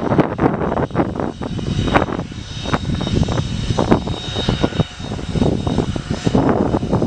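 Boeing 727-200's three Pratt & Whitney JT8D turbofans running: a rough, uneven jet roar with a steady high whine over it.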